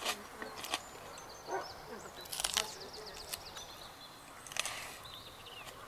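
Small birds chirping, with a quick trill about two and a half seconds in, over a few sharp clicks or snaps.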